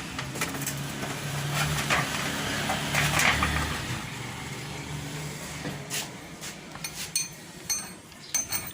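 Metal parts and tools clinking and knocking while being handled, with a few short ringing metallic clinks near the end. A low steady hum runs underneath for the first few seconds.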